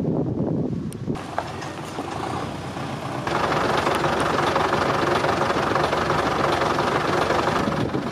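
A heavy vehicle engine running, growing much louder about three seconds in and then holding steady.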